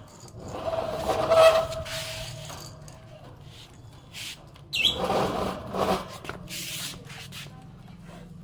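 Budgerigar chirping and chattering in two bursts, one about a second in and another about five seconds in, with a short high falling note at the start of the second burst.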